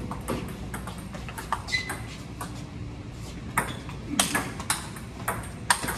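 Table tennis rally: the ping pong ball clicking off the paddles and bouncing on the table in a quick, uneven string of sharp ticks, with a few louder hits in the second half.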